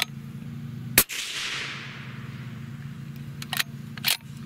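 A single suppressed rifle shot from a Savage 110 bolt-action in .308 Winchester with a Rugged 30-cal suppressor: a sharp report about a second in whose tail fades over about a second. A few sharp clicks near the end as the bolt is worked and the spent case ejected, over a steady low hum.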